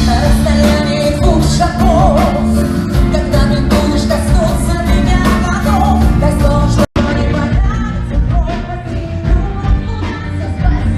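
Pop song performed live: a singer's voice over band accompaniment with a steady beat. The sound drops out for an instant about seven seconds in.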